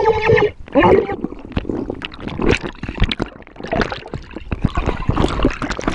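Water splashing and gurgling around an action camera held in the sea, in many short irregular splashes. A person cries out once at the start, with a shorter cry about a second in.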